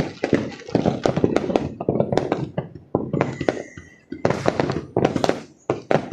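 Fireworks and firecrackers going off in a rapid, irregular string of sharp bangs and crackles, easing briefly a little before four seconds in, with a faint thin whistle around then.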